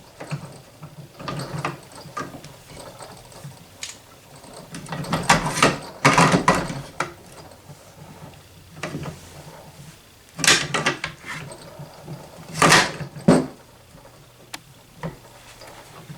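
Steel parts of a Barrett Model 95 .50 BMG rifle scraping and clicking against each other as the heavy barrel assembly is worked along its grooves back onto the receiver, in several separate bouts, the longest a few seconds in.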